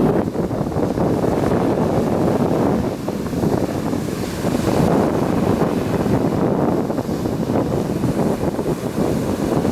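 Sea surf on the shore, heavily overlaid by wind buffeting the microphone; the noise rises and falls with gusts and waves.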